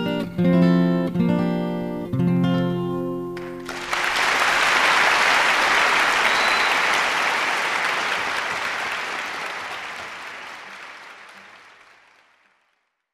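Acoustic guitar music ending on plucked chords; about four seconds in, applause takes over and slowly fades out.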